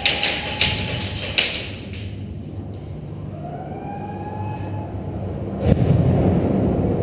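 A siren wailing, its pitch rising and falling twice, over knocks and rustling. About five and a half seconds in comes a sudden thump, then a low rumble.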